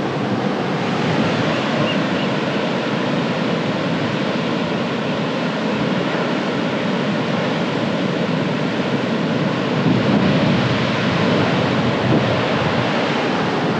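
Waves washing onto the shore: a steady rush of surf that swells a little about ten seconds in.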